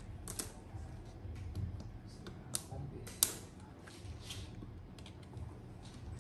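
Light clicks, taps and rustles of plastic laptop screen parts being handled by hand, as a replacement panel is fitted into the display lid and bezel; one sharp click about three seconds in is the loudest.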